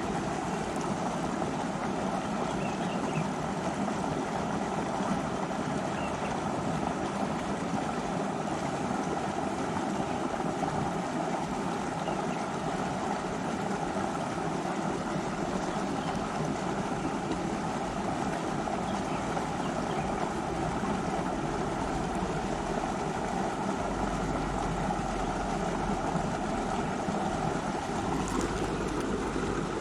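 A river flowing: a steady rush of water.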